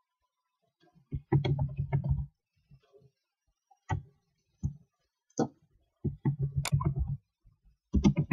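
Typing on a computer keyboard: short runs of key clicks about a second in and again around six and eight seconds, with single key presses between.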